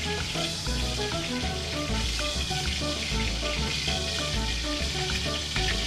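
Diced potatoes sizzling as they fry in hot oil in a steel wok, stirred with a wooden spatula, over background music with steady bass notes.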